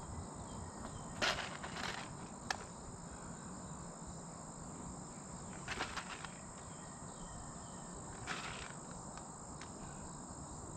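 Quiet outdoor ambience with a steady high insect drone, broken about five times by short soft scuffs of hand-planting in sandy soil.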